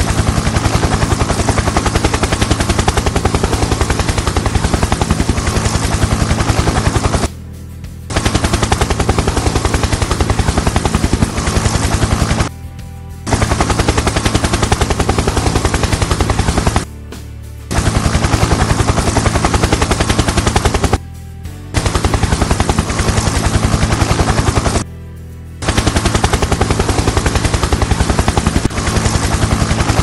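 Small DC motor of a homemade toy helicopter running at speed close to the microphone, spinning its two-blade plastic rotor with a fast, rattling buzz over a steady low hum. The sound breaks off for under a second five times.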